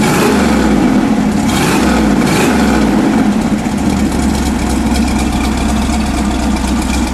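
1969 Chevrolet Nova SS's factory 396 cubic-inch big-block V8 (L78) idling, heard at the exhaust outlet. At the very end it is switched off and the sound dies away.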